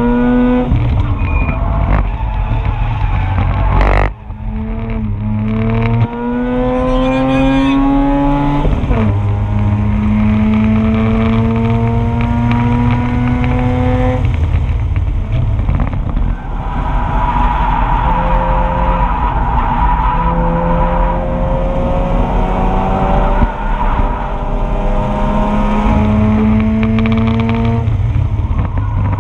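Mazda RX-8's two-rotor Renesis rotary engine at full throttle on track. Its pitch climbs in long pulls and drops back at each shift or lift, several times over. There is a sharp knock about four seconds in.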